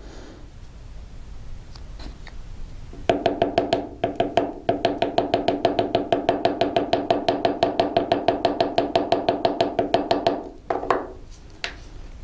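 A small mallet tapping a steel bezel-setting punch in a fast, even run of ringing taps, about eight a second, pushing the wall of a small bezel cup over a flat-back crystal to set it. The tapping starts about three seconds in, breaks off briefly, then runs on until near the end.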